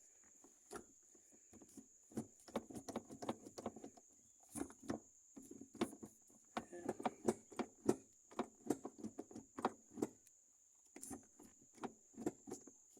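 Irregular clicks and clunks of a newly installed manual gear shifter and its linkage being worked through the gears, in clusters with short pauses, over a faint steady high whine.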